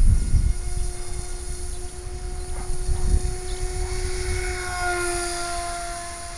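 Electric RC model plane's 2200Kv brushless motor and 5x5 inch propeller running in flight, a steady whine that swells louder and drops slightly in pitch about five seconds in as the plane passes. A low rumble on the microphone, loudest at the start.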